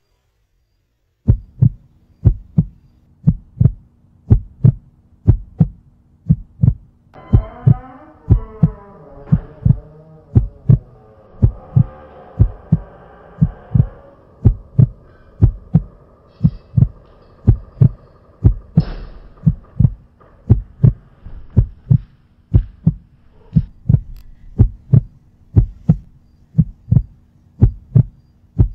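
Heartbeat sound effect: a steady, slow double thump that starts about a second in and repeats evenly throughout, over a faint low hum. A wavering, voice-like sound rises and fades over it from about 7 to 14 seconds.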